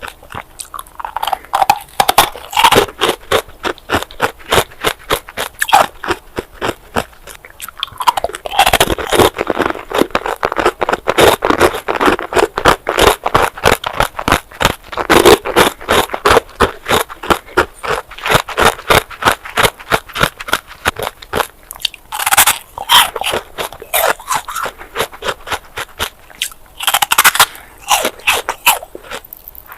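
Bars of ice being bitten and chewed: a fast, continuous run of sharp cracks and crunches, with heavier bursts at a few points.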